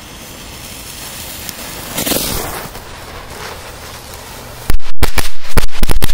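A rising hiss of burning pyrotechnics, then about four and a half seconds in a rapid, irregular string of very loud sharp cracks as pyrotechnic strobe firecrackers go off.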